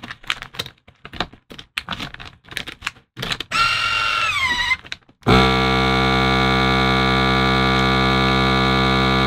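Plastic vacuum bag rustling and clicking as it is fitted into a FoodSaver vacuum sealer, then the sealer's pump starts: a short whine that drops in pitch and stops, and about five seconds in a steady loud hum as the pump draws air from the bag.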